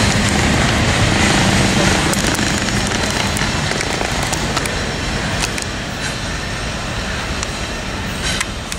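Double-stack container freight train rolling by: a steady rumble of wheels on rail that slowly fades, with scattered sharp metallic clicks and ticks from the wheels, strongest near the end.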